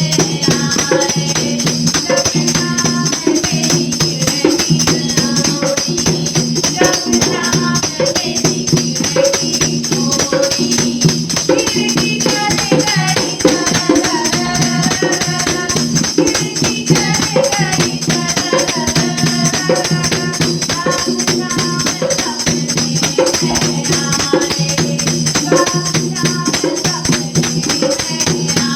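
Women singing a devotional Krishna bhajan, with jingling hand percussion keeping a steady, quick beat over a low sustained accompaniment.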